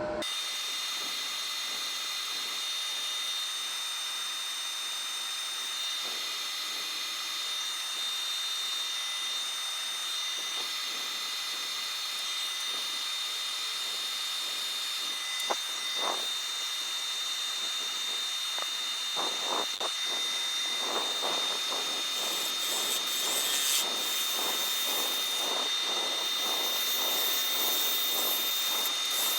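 Wood lathe running with a steady whine and hiss. About two-thirds of the way in, a series of regular scraping strokes sets in as a turning tool works the spinning wood.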